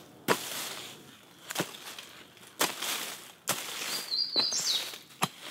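A pickaxe biting into dirt five times, about once a second, each blow followed by a short scrape of loosened soil as dirt is pulled back to level the ground. A bird chirps briefly near the end.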